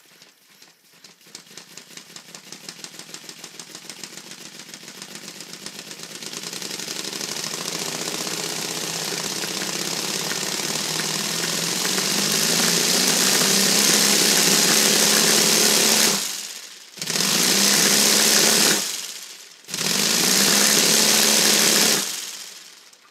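3D-printed four-cylinder inline compressed-air engine running free with no propeller, its rapid exhaust puffs speeding up from a slow chuff to a fast, high buzz as it gathers revs. Twice near the end it drops away for about a second and picks up again, then winds down.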